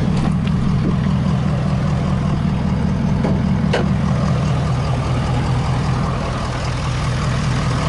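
Ford F-250 pickup's engine idling steadily with a low, even rumble, and a few light clicks over it.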